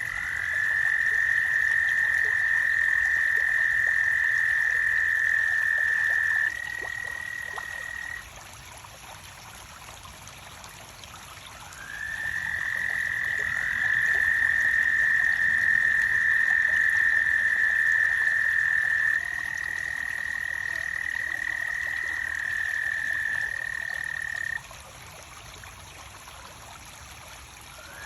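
Frogs at a garden pond calling at night: two or three callers give long, steady, high trilling calls several seconds each, every call opening with a short upward slide, overlapping at slightly different pitches with brief lulls between bouts.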